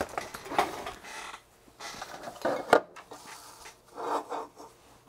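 Handling noise: a soldering iron rubbing and scraping against its plastic iron holder as it is pulled out, in several short bursts, with a sharp click a little under three seconds in.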